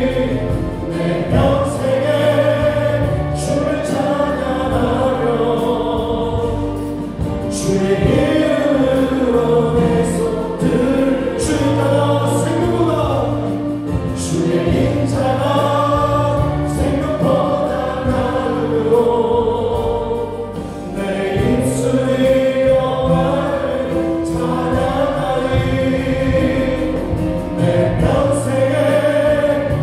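Voices singing a Christian praise song together over a church worship band of electronic keyboards, bass guitar and drums, with cymbal strikes through the song.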